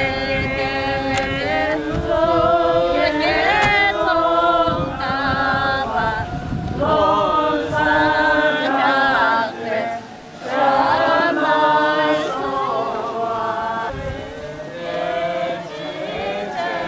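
A group of voices chanting a Tibetan Buddhist prayer together, a melody of held notes that rises and falls, sung in phrases with short breaks between them.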